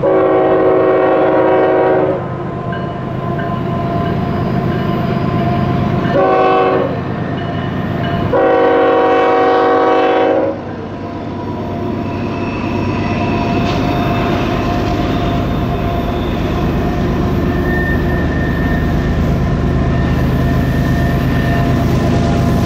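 Diesel locomotive air horn sounding three blasts (long, short, long) over the steady running of a train. The train keeps running and grows a little louder after the horn stops.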